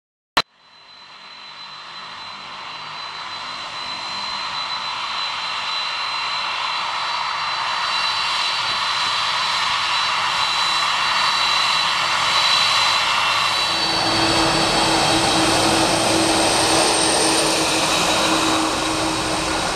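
Jet engines of a Boeing 747-400 taxiing close by: a steady rushing hiss with a high whine, growing louder, fuller and lower from about fourteen seconds in as the jet comes past. A single sharp click right at the start.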